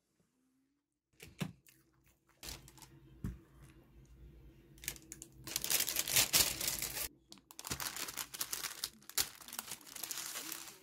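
Thin sandwich wrapper paper and a paper bag crinkling and rustling as they are crumpled and handled. The crinkling comes in irregular bursts starting about a second in, is loudest around the middle, and picks up again near the end.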